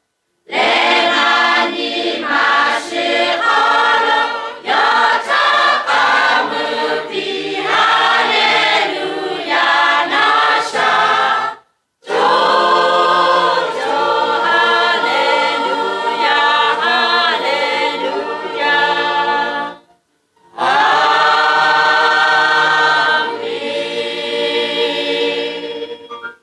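Choir of mostly women's voices with a man among them, singing unaccompanied in long phrases with short breaks for breath about 12 and 20 seconds in. The last phrase softens and ends right at the close.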